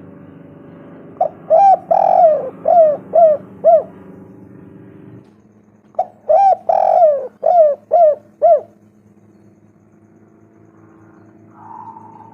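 Spotted dove cooing: two phrases of about six coo notes each, a couple of seconds apart, over a steady low hum.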